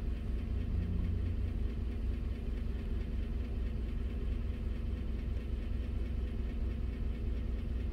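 2015 GMC Sierra's 5.3-litre direct-injection V8 idling steadily while a scan tool runs an injector balance test, in which the engine has a fuel-imbalance fault that points to its injectors.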